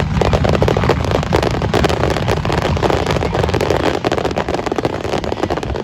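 Small fireworks crackling and popping in quick irregular succession, over a low rumble of strong wind on the microphone.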